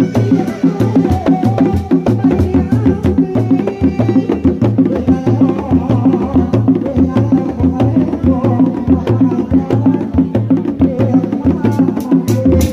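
Seni reak dogdog drums, hand-struck, playing a fast interlocking rhythm of low thumps, with a held melodic line sounding above the drums. Sharp clicking strokes grow denser near the end.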